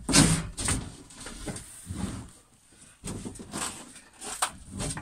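Irregular scrapes and knocks of a wooden galley floor panel being lifted and shifted, with the heaviest handling noise in the first second.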